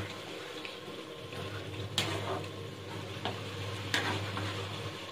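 A spatula stirring instant noodles in broth in a steel pan on the stove, with a few sharp knocks of the spatula against the pan, about once every second or two.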